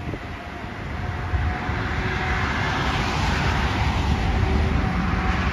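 Jet aircraft passing: a broad rush of engine noise that swells over the first few seconds and then holds, with a faint steady whine.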